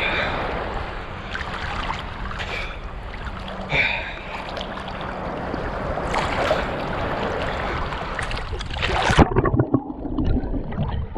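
Seawater sloshing and splashing around a swimmer and against the camera, with wind on the microphone. About nine seconds in there is a splash as he dunks and the camera goes under, and the sound suddenly turns muffled and dull underwater.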